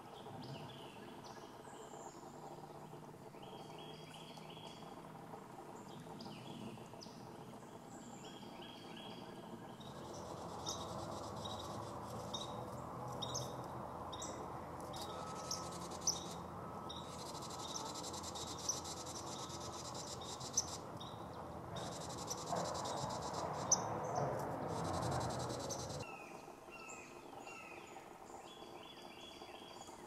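Outdoor nature ambience: small birds calling in short repeated phrases, with insects chirping. For a stretch in the middle the insect chorus is denser and there is a louder rustling noise with a few sharp clicks, before the bird phrases return near the end.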